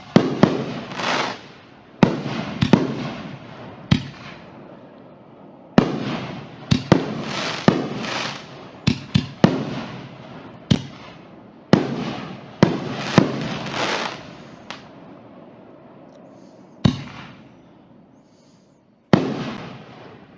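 Dominator Sky Titan consumer fireworks going off: about twenty sharp aerial bangs, each trailing off quickly. They come fastest in the middle and only a couple near the end.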